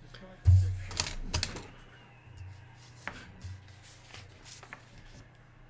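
A thump about half a second in, followed by scattered light clicks and taps, like things being handled on a table.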